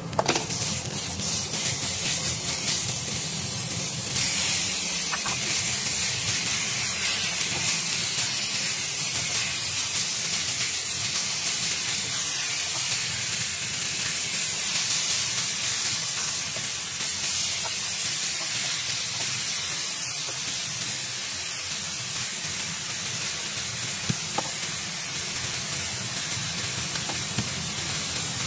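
Raw ground beef and shredded ginger sizzling in a hot nonstick pan while being stirred with a wooden spatula: a loud, steady hiss, with a few light taps near the end.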